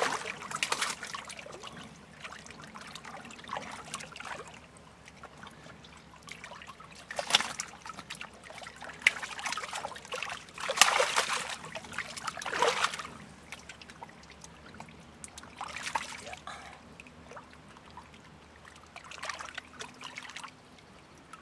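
Fish splashing and thrashing in the water as they are tipped out of a half-submerged keepnet, in irregular bursts of splashing with quieter trickling and lapping water in between.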